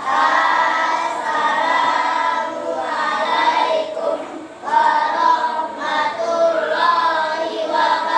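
A group of children singing together, with held notes and a short break a little after four seconds in.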